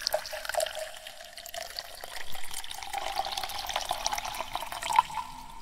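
Splashing, dripping water sound effect for an animated logo intro: many small drip clicks over a hiss, with a faint tone rising slowly through it.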